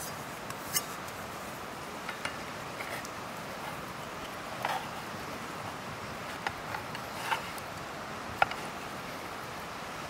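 Outdoor ambience: a steady rushing noise with a few scattered light clicks and taps.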